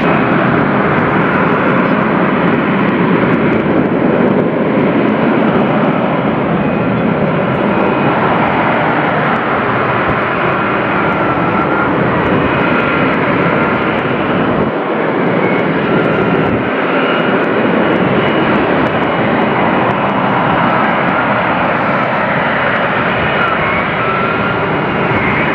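F-35B's F135 jet engine and shaft-driven lift fan running at high power in a hover during a vertical landing: loud, steady jet noise with a faint high whine that wavers in pitch above it.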